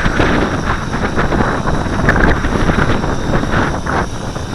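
Gusty wind of about 15 knots blowing across the microphone: loud, rough wind noise that swells and dips with the gusts.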